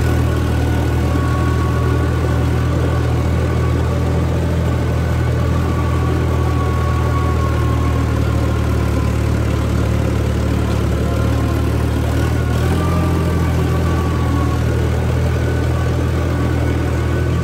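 Tractor engine running steadily at low revs while the tractor is driven across a tilled field, a loud, even low hum with no revving.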